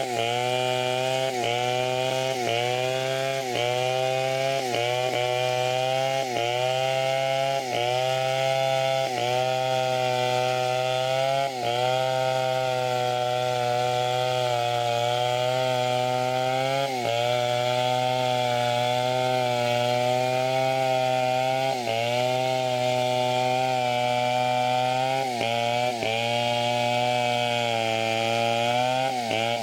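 A large two-stroke chainsaw cutting through teak at full throttle, its engine note dropping briefly under load and picking back up over and over. The dips come about once a second at first, then the cut settles into longer steady stretches.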